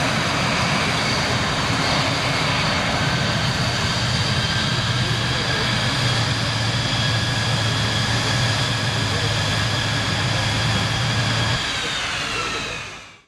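Saab Viggen's Volvo RM8 turbofan running at ground idle on the flight line: a steady jet roar with a high, even whine. Near the end the low hum drops away and the whine dips in pitch as the sound fades out.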